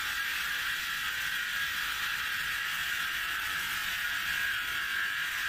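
Steady whirring machine noise from metal-working equipment, an even hiss strongest in a high-middle band that holds level without a break and cuts off abruptly at the end.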